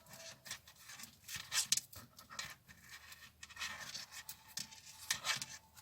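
Crochet hook working paper raffia yarn: irregular scratchy rustles as the stiff yarn is pulled through the stitches.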